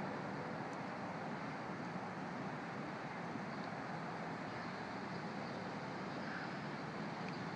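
Steady outdoor background noise, an even hiss and rumble with a faint low hum underneath and no distinct events.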